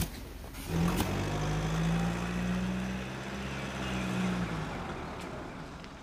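Chevrolet Silverado pickup truck driving through deep snow, its engine pulling under load: a steady engine note comes in under a second in, holds, and fades near the end. Two sharp knocks, one at the very start and one about a second in.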